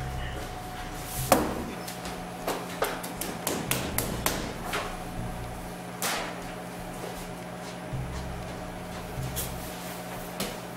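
Irregular knocks, taps and clatter of kitchen things being picked up and set down in a commercial kitchen with steel counters and wire shelving, the sharpest knock about a second in, over a steady low hum.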